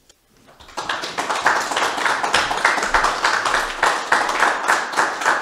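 A small group of people clapping, starting about a second in after a brief pause.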